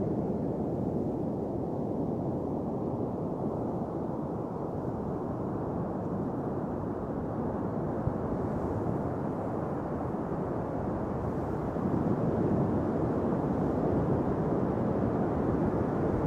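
Steady low rush of ocean surf on a beach, with wind noise on the microphone; it swells a little about twelve seconds in.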